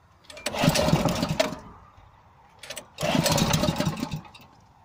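INGCO 6.5 hp single-cylinder four-stroke stationary engine being pull-started twice: each pull of the recoil starter sets it turning over loudly for about a second and a half, then it falls quiet without staying running. It is a hard-starting engine that will not keep running.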